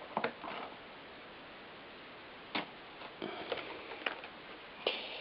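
A few scattered, light clicks and knocks over a low, steady hiss.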